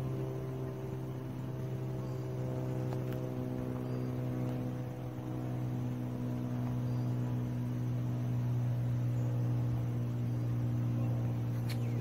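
Three-bladed Cirrus SR-22 flying overhead: a steady propeller and six-cylinder engine drone, a strong low hum with several steady overtones above it, growing a little louder in the second half.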